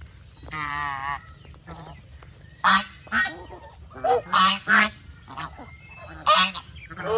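Domestic geese honking: one drawn-out, wavering call near the start, then a run of loud, short honks, several in quick succession.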